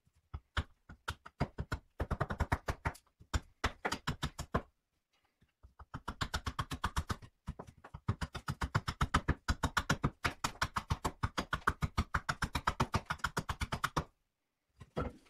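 Carving axe chopping a birch spoon blank on a wooden chopping block in quick runs of short, sharp strikes, about four or five a second, with brief pauses between runs. The chops are roughing the blank, taking material off the sides. The chopping stops a little before the end.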